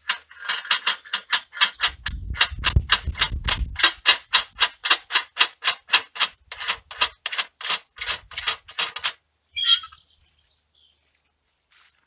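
Rapid, even metallic clicking, about three clicks a second for some nine seconds, with a low rumble underneath from about two to four seconds in, then one louder single click near the end.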